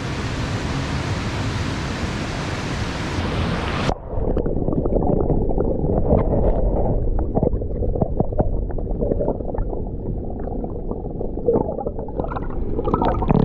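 Water pouring and splashing over a shallow concrete dam lip, a steady rush. About four seconds in the sound turns suddenly muffled, heard from underwater: a low bubbling and gurgling rumble with scattered small clicks.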